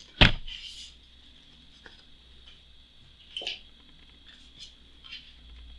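Printed map tiles handled on a tabletop: one sharp knock shortly after the start as something is set down, then a few faint taps and rustles of the tiles being shifted.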